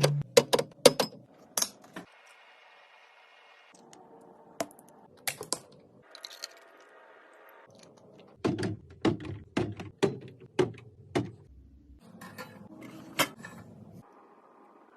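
Kitchen items and containers being handled and set down while a fridge or kitchen is organized: clusters of separate clicks, taps and light clatters. There are short pauses between the clusters.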